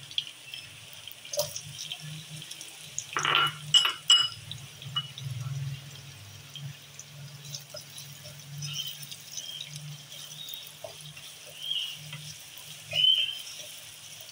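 Sliced onions tipped into hot oil with frying cumin seeds in a nonstick pot, a loud burst of sizzling and clatter about three seconds in. The onions are then stirred with a spatula, with scattered scrapes over a steady frying sizzle.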